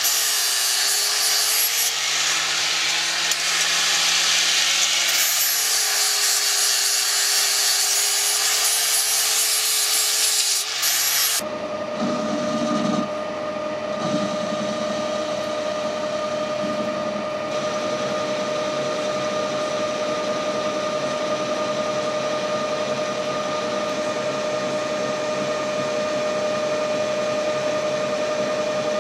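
Power tool cutting metal with a rough rasping noise and a pitch that wavers slightly; about eleven seconds in it cuts off abruptly, giving way to a machine motor running with a steady whine.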